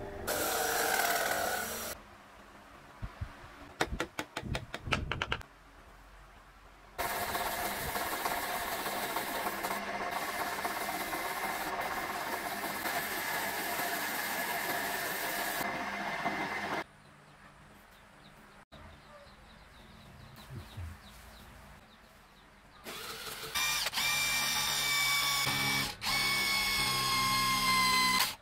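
Power tools working wood in several separate bursts. A drill press with a hole saw runs at the start, and a long stretch of steady machine noise comes in the middle. Near the end, a brushless cordless drill with a step bit whines, rising in pitch as it speeds up.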